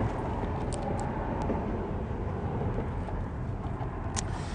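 Steady outdoor background noise with a low rumble, and a few faint clicks.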